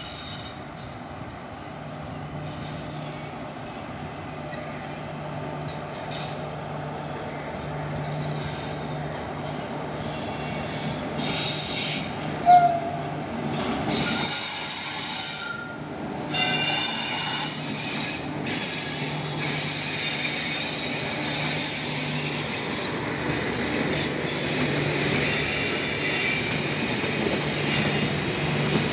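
Electric locomotive hauling a rake of LHB coaches, approaching and passing close by; the rumble of wheels on rails grows steadily louder, over a steady low hum. A brief sharp, loud sound comes about twelve and a half seconds in, and then the coaches' wheels roll past on the rails.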